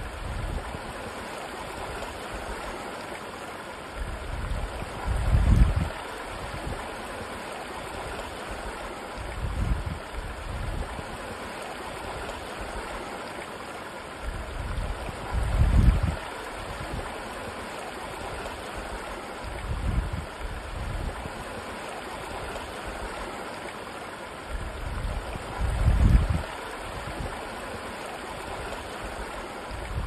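A mountain waterfall running as a shallow cascade over rock slabs: a steady, even rush of water. A low rumble swells up under it every four to six seconds.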